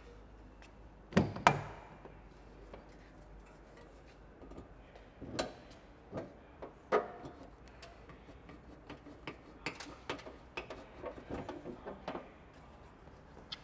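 Knocks and light taps of a snorkel body being handled and pressed against a ute's front guard and pillar during a test fit: a loud double knock about a second in, a few single knocks, then a run of small clicks near the end.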